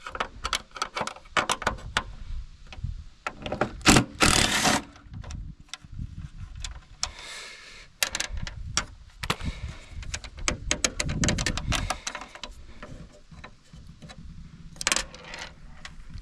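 Wrench work on the bumper bolts and nuts: irregular metal clicks, clinks and scrapes, with a louder clatter about four seconds in.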